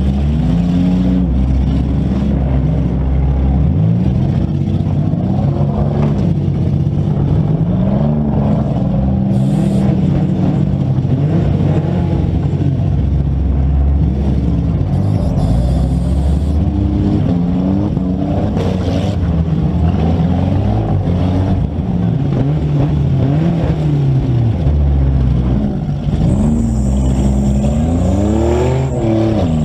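Several demolition-derby compact cars' engines running and revving over and over, pitch rising and falling as they throttle up and back off, several engines heard at once.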